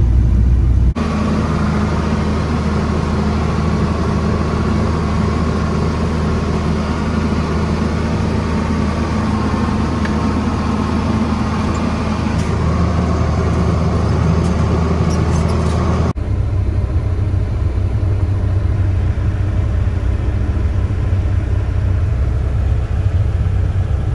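Diesel machinery engines heard from inside their cabs, in three cuts. First an excavator's engine runs for about a second. Then a John Deere tractor's engine runs steadily under way for about fifteen seconds, with a deeper steady drone. Then the excavator's engine rumbles on again.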